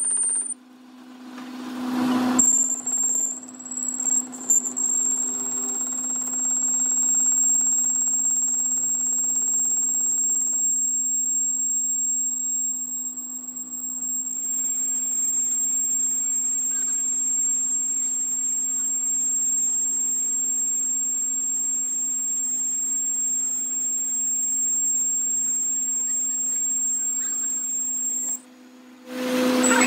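Metal lathe running, turning down a steel gear shaft: a steady low hum from the machine with a constant high-pitched whine over it. The sound drops out briefly near the start and again near the end.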